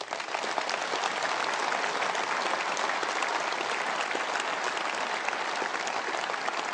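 A large audience in a big hall applauding: many hands clapping in a dense, steady wash that breaks out suddenly at the start and holds throughout.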